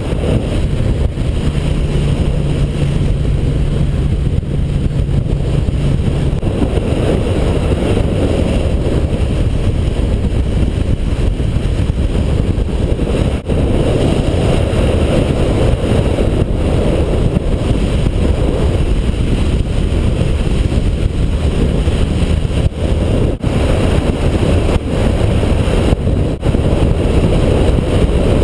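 Motorcycle under way: a loud, steady roar of wind on the microphone with the engine running underneath, and a steady low hum for the first few seconds.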